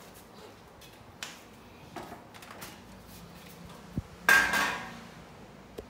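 The sheet-metal top cover of an Onkyo TX-SA605 AV receiver being handled and lifted off. A few small clicks, then a sharp knock about four seconds in, followed by a loud metallic scrape and rattle with a ringing tone lasting about half a second.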